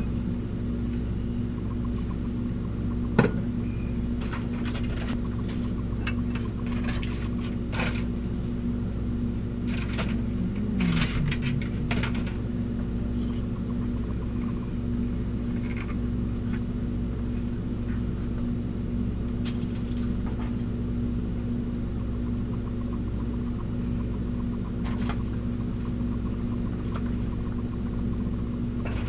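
A steady low machine hum, with scattered clicks and clinks of kitchen tongs and a glass baking dish being handled. The sharpest knock comes about three seconds in, and there is a cluster of clatter around ten to twelve seconds.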